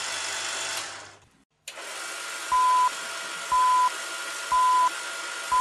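Film countdown leader sound effect: four short beeps at one steady pitch, one a second, starting about two and a half seconds in, over a steady hiss. The hiss fades out about a second in and returns just before the beeps begin.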